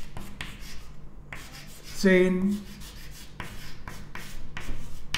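Chalk writing capital letters on a chalkboard: a run of short scratching strokes, a few each second.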